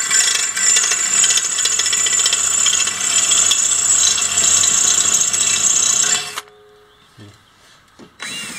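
DeWalt 20V cordless drill boring a small hole through a metal tube, running steadily with a high-pitched whine as the bit cuts, then stopping suddenly about six seconds in.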